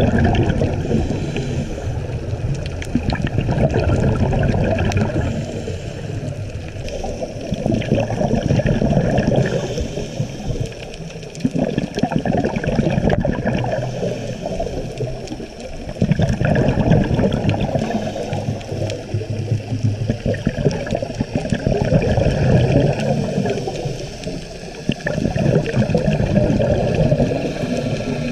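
Scuba diver's exhaled bubbles from the regulator, heard underwater: a loud bubbling gurgle that swells with each breath, about every four seconds.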